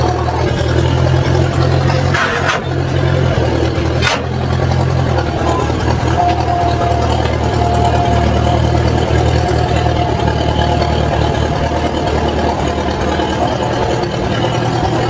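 Old Massey Ferguson backhoe's engine running steadily, with a short burst of noise about two seconds in and a sharp click about four seconds in.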